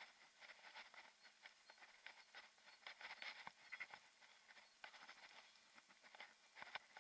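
Faint, irregular clicking and rattling from a mountain bike rolling along a rough, patched lane, with no steady tone underneath.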